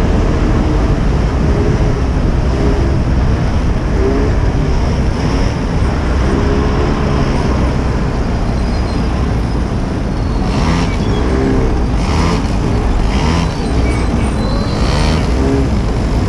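Street go-kart's small engine running, its pitch rising and falling repeatedly as the kart speeds up and slows, under a heavy low rumble of wind on the microphone of the camera mounted on the moving kart.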